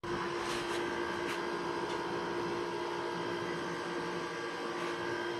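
A steady hum holding one pitch, with a few faint clicks in the first two seconds.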